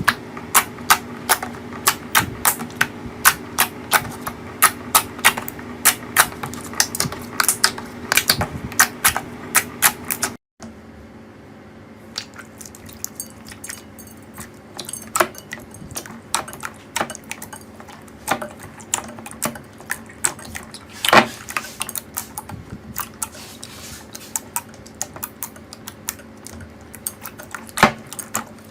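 Slime being squeezed and pressed by hand, giving rapid crisp popping clicks about three a second. After a cut about ten seconds in, the crackling turns sparser, with a few louder pops.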